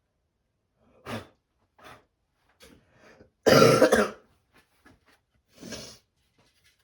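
A man coughing and clearing his throat: a few short throat sounds, then one loud cough about halfway through and a softer exhale near the end.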